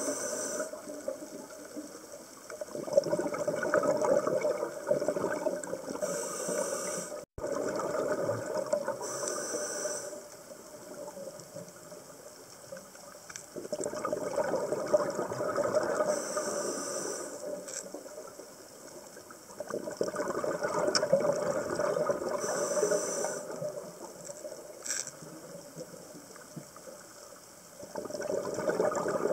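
Scuba diver's regulator breathing underwater: a short hiss on each inhale, then a few seconds of rumbling exhaled bubbles, repeating through several breaths.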